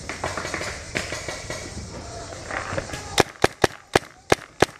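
Paintball marker firing a rapid string of sharp shots, about five a second, starting about three seconds in.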